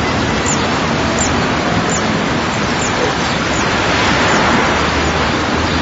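Dense, steady wash of many layered garden field recordings, street traffic and wind blended into one continuous noise. A short high chirp repeats about every three quarters of a second and fades in the second half, and a low hum comes in near the end.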